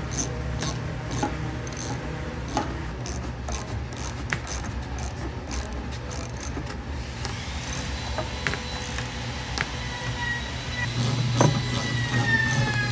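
Ratchet wrench clicking in irregular runs as hex bolts are snugged part-way into a wooden shelf frame, over quiet background music.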